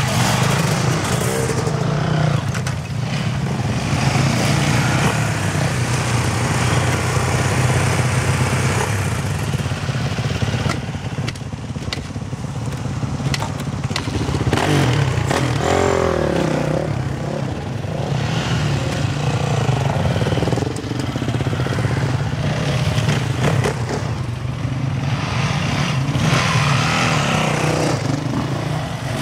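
Several enduro dirt bike engines running and revving as the bikes ride past one after another, with the pitch rising and falling sharply about halfway through.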